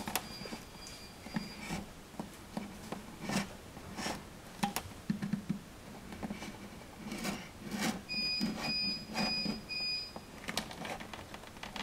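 Utility knife blade scraping along the edge of a painted wall plate in short repeated strokes, scoring the paint seal between plate and wall. About eight seconds in there are four short high squeaks.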